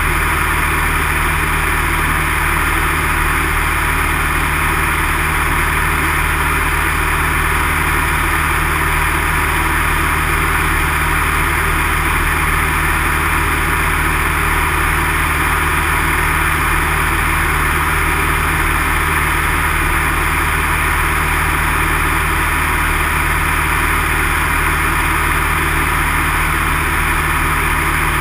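Light single-engine propeller plane's piston engine and propeller droning steadily in flight, heard from inside the cockpit.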